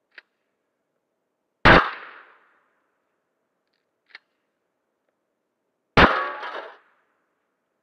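Two 12-gauge pump-action shotgun shots about four seconds apart, each slug striking a stack of 3 mm aluminium plates with a sharp bang and a metallic clang that rings out briefly. After the second shot there is a short rattle as the plate stack topples.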